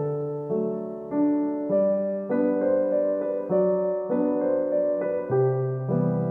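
Background keyboard music: a steady run of sustained chords, a new chord struck a little under twice a second.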